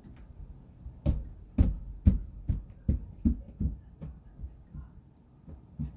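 A run of dull low thumps, about two a second, starting about a second in and dying away after about four seconds.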